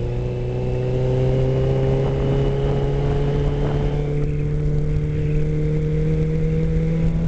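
Suzuki Katana 600's inline-four engine pulling in third gear, its pitch rising slowly and steadily as the bike accelerates, with wind rush on the helmet-mounted microphone.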